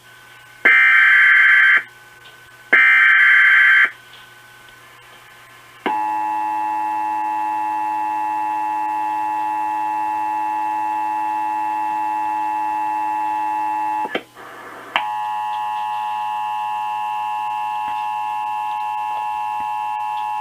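Emergency Alert System header data bursts: two harsh, screeching bursts of about a second each. They are followed about six seconds in by the steady EAS attention tone, which opens a Required Monthly Test. The tone breaks off briefly about 14 seconds in, then resumes with a slightly changed pitch.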